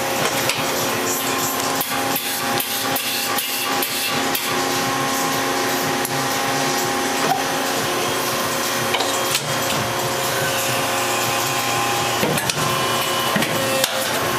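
Injection moulding machine running: a steady mechanical hum with several steady tones, with a scatter of sharp clicks and knocks in the first few seconds.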